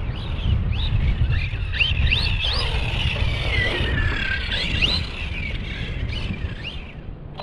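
Redcat Kaiju 1/8-scale RC monster truck's Hobbywing four-pole brushless motor, run on 6S, whining as it revs up and down again and again under hard throttle, with one long falling sweep midway, over a steady low rumble.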